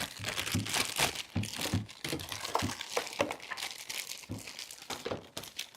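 Plastic bag crinkling and rustling as it is handled and opened, a dense run of irregular crackles that thins out near the end.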